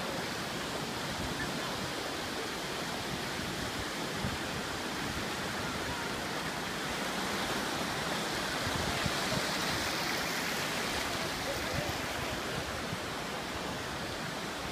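Ocean surf washing over shallow water, a steady rushing noise that swells slightly a little past the middle.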